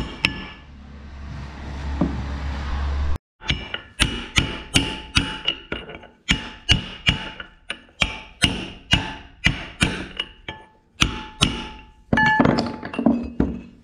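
Hammer striking metal on a tractor's front-axle parts: a steady run of sharp blows, two to three a second, each ringing, after a low rumble that cuts off about three seconds in.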